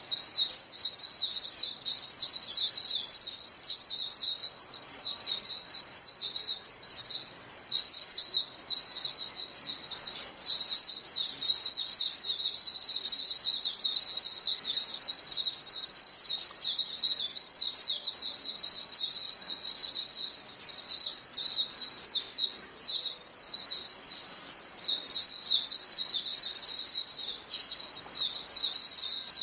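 A flock of white-eyes (vành khuyên) calling to one another in a dense, unbroken stream of rapid high-pitched chirps, many birds overlapping. The stream dips briefly about seven and a half seconds in.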